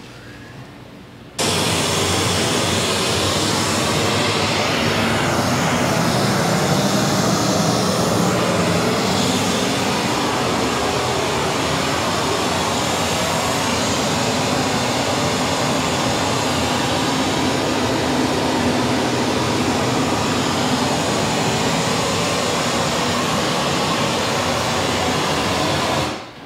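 A loud, steady rushing noise like a jet engine that starts abruptly about a second and a half in and fades out near the end, with a faint falling sweep partway through.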